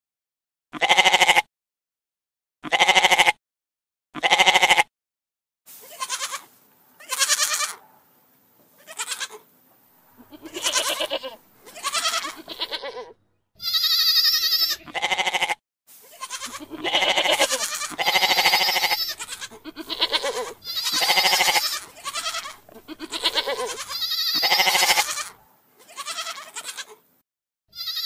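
Goats bleating over and over, about fifteen loud calls with short pauses between: short bleats at first, then longer, drawn-out ones from about halfway through.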